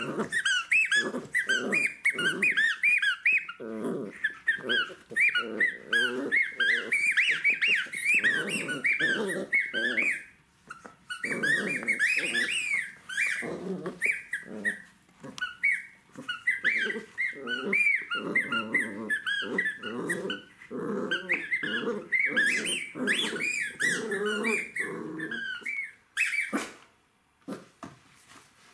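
Jack Russell terrier puppy play-growling while mauling its toys, low growls mixed with rapid high-pitched whines, easing off near the end.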